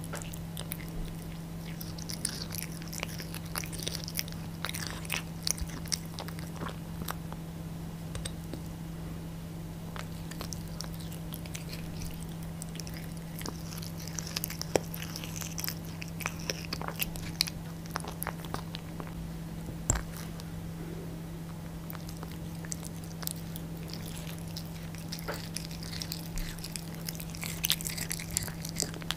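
Devon Rex cat chewing tough raw duck gizzard held in a hand, with wet clicking and crunching bites in spells and quieter gaps between; the gizzard is hard for the cat to chew through. A steady low hum runs underneath.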